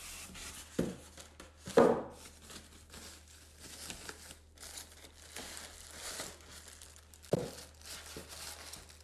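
Packaging being handled while items are unpacked from the coffee machine's box: irregular crinkling and rustling, with a few louder knocks, the loudest about two seconds in.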